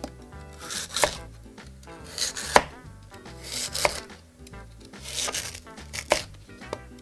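Kitchen knife slicing through a peeled lotus root into rounds on a cutting board: a short crunch through the crisp root, then a knock of the blade on the board, about once a second.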